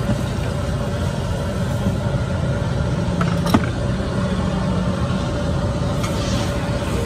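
Steady low rumble with a faint steady hum: the background din of a busy street food stall. A single sharp knock comes about three and a half seconds in.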